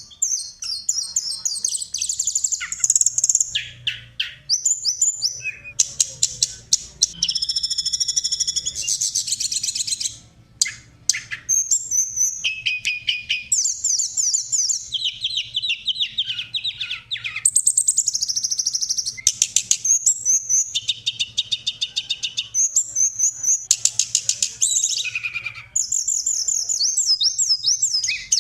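Songbirds singing in a masteran tutoring recording: a fast, varied string of high chirps, rattling trills and rapidly repeated notes, phrase after phrase, with a short lull about ten seconds in. A faint low hum lies underneath.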